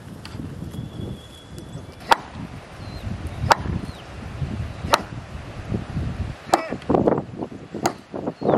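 Five sharp blows on wood, about a second and a half apart, from a wooden fence post being struck with overhead swings.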